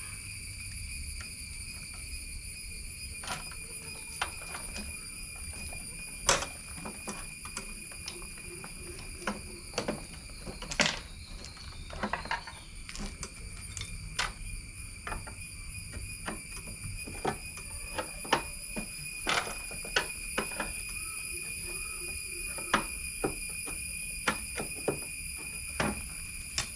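Irregular clicks and knocks of hand tools and metal parts as a Lambretta scooter is worked on, over a steady high-pitched insect drone.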